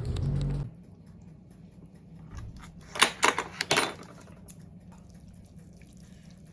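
A low rumbling noise cuts off suddenly just after the start. After a quiet stretch, a quick run of about five sharp clicks and clatters comes within a second, midway through.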